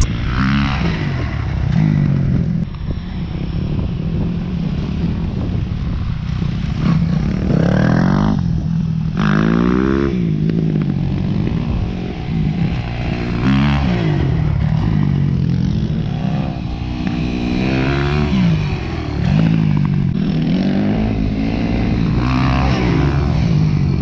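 Dirt bike engines revving, the pitch climbing and falling again several times as the bikes throttle up and back off.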